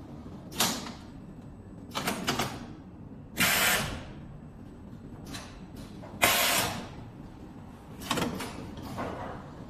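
Drawn-arc stud welding machine firing M10 shear studs: five or six loud, harsh bursts, each about half a second long and one to two seconds apart, over a steady machine noise.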